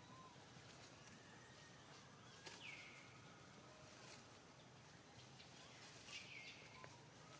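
Near silence: faint outdoor ambience with two short high animal calls, each falling in pitch and then holding briefly, about two and a half and six seconds in, and a few faint high chirps near the start.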